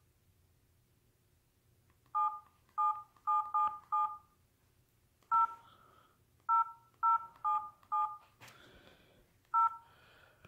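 LG 442BG flip phone's keypad beeping two-tone dialing tones as keys are pressed to type text: about eleven short beeps in irregular runs, the pitch pair shifting between keys. A brief sharp click comes between the beeps near the end.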